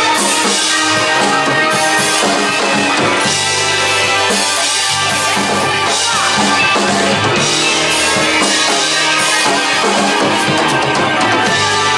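Instrumental rock music, with a drum kit keeping a steady beat under guitars and no singing.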